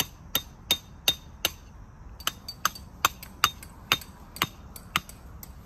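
Hammer blows on a metal tent peg: a run of sharp, ringing metallic strikes about three a second, pausing briefly near two seconds in, then going on a little slower.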